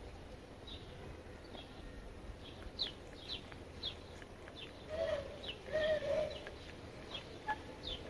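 Birds chirping: a series of short, high, falling chirps, about two a second, with two louder, lower wavering calls about halfway through.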